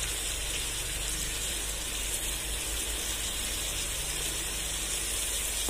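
Sliced onions, chopped coriander and mint leaves frying in hot oil in a pot: a steady sizzle.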